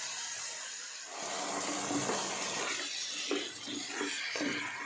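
Chicken pieces frying in oil in a steel pot, with a steady sizzle.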